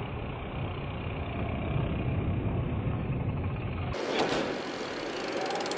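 A steady low engine rumble, like a vehicle running, for about four seconds. It is cut off abruptly by a different, brighter noise with fast ticking near the end.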